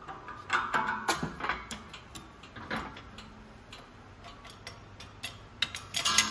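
Light metallic clicks and clinks of a steel wheel hub being handled and shifted on the iron blocks of a shop press. A few ringing clinks come in the first second or so, and a quicker run of ticks comes near the end.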